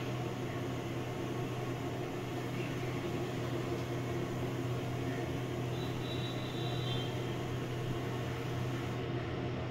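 Steady low hum and whoosh of a running fan or motor, unchanging throughout.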